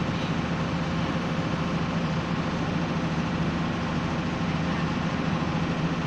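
Steady low hum of a machine running, like an engine idling, even and unbroken. No bird calls.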